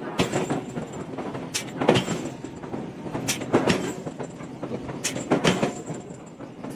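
Hammer blows on hot iron being forged, heavy strikes coming in pairs about every second and a half.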